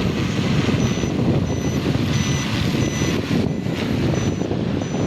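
Large cleaning drone's rotors running with a heavy, steady rumble, while a short high electronic beep repeats about every 0.7 seconds from about a second in.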